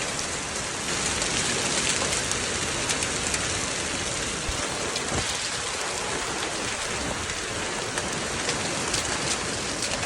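Heavy hail coming down: a dense, steady clatter of hailstones striking hard surfaces, made of countless small ticks.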